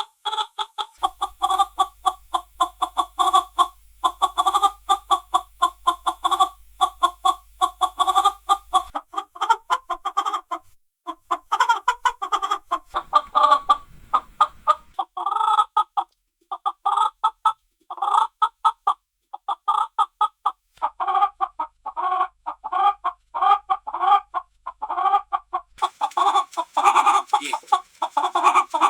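Chickens clucking: a dense run of short, quick clucks, several birds at once, with a few brief pauses.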